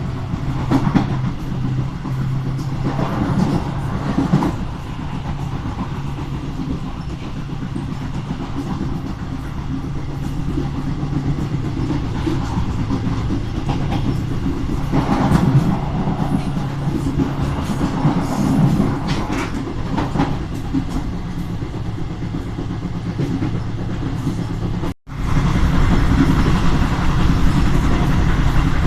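Train running along the line, a steady low rumble of wheels on rail with a hum and recurring clicks and swells. About 25 seconds in, the sound drops out abruptly and returns as a louder, denser rumble.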